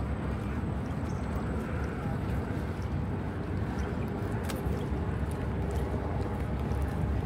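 Steady low outdoor rumble, with a few faint footstep clicks on the paved path.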